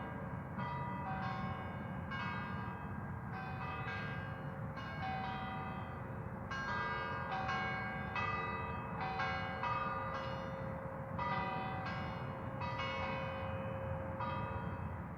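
Church bells pealing in the distance: a continuous run of overlapping bell strikes, about two a second, over low background noise, fading out at the end.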